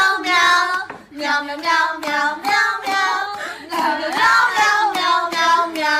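A child's high voice singing a tune, unaccompanied, in held and sliding notes.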